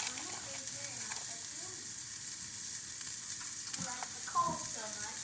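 Cheeseburger patties frying in a pan: a steady sizzle.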